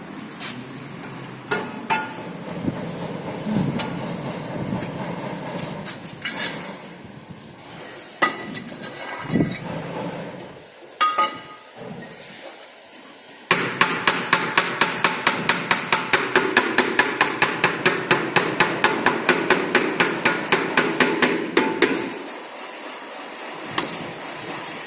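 Hard knocks and clinks of a hand tool in tile work, at first scattered, then about halfway through a fast, even tapping of about five strokes a second that lasts about eight seconds and stops shortly before the end.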